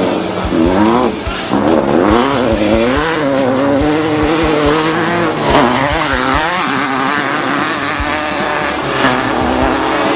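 Off-road race truck's engine revving up and down again and again under hard driving, with frequent low thumps from the truck working over rough ground.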